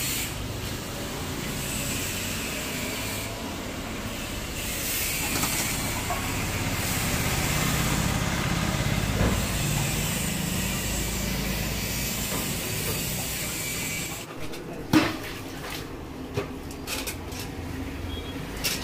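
Hot oil sizzling steadily in a kadai during deep-frying, with a low rumble underneath. About fourteen seconds in the sizzle stops and scattered clicks and knocks follow, one sharp knock a second later.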